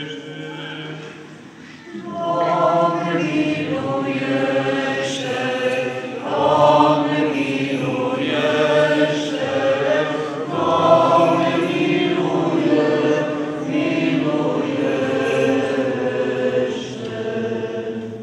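Choir singing Orthodox liturgical chant during a memorial service. A quieter chanted phrase comes first, and about two seconds in the choir enters louder, holding sustained notes in several voices.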